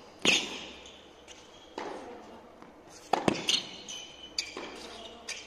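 Tennis rally on an indoor hard court: racket strings hitting the ball about every one and a half seconds, the nearer player's strikes loudest (about a quarter second in and just past three seconds) and the far player's fainter, with short squeaks of shoes on the court between shots.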